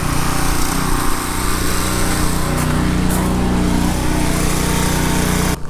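Petrol pressure washer running steadily: a small engine's drone under a continuous hiss. It cuts off abruptly near the end.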